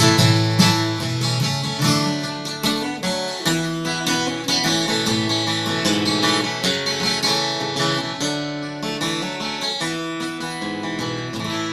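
Acoustic guitar strummed and picked in an instrumental break between verses of a folk song.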